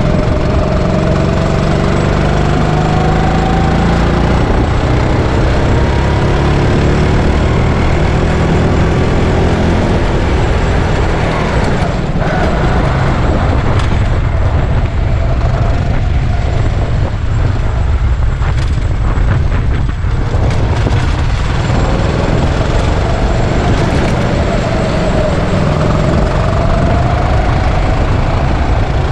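Go-kart engine running hard, its pitch climbing steadily as the kart accelerates, falling away around the middle and climbing again near the end, over a heavy low rumble.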